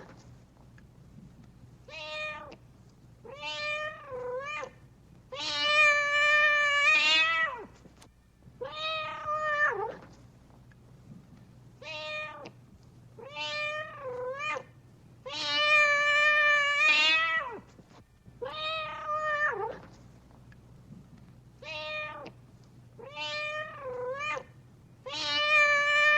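Domestic cat meowing over and over: about a dozen separate meows, some short, some long and drawn out, a few dipping in pitch in the middle. The same sequence of meows repeats about every ten seconds.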